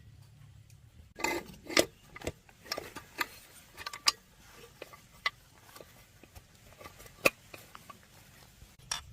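Irregular clicks, knocks and light metallic clinks of tools and small metal engine parts being handled, with a short clatter a little over a second in and a sharp click about seven seconds in.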